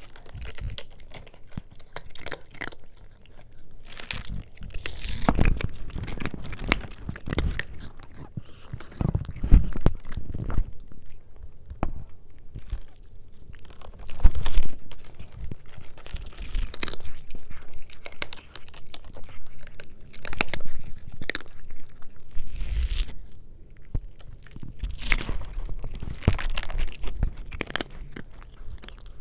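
A cat eating food close to the microphone, chewing with irregular sharp crunches and clicks; the loudest comes about fourteen seconds in.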